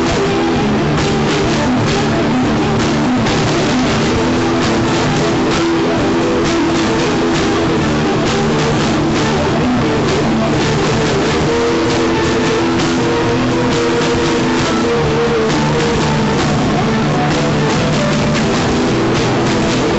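Rock song playing: electric guitar chords over a steady drum-kit beat.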